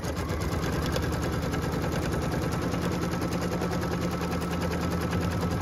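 Dreamweaver XE sewing and embroidery machine stitching a tack-down line in the hoop: a steady, fast, even rattle of needle strokes.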